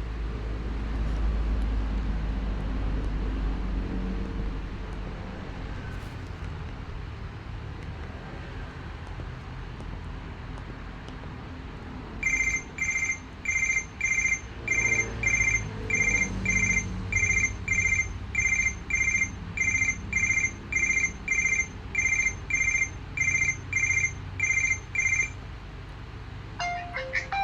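Mobile phone ringtone of sharp, high electronic beeps repeating about twice a second. It starts about halfway through over a low background rumble and stops a couple of seconds before a different melodic ringtone begins at the very end.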